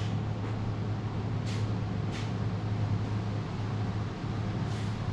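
Steady low machine hum with a few short hisses over it.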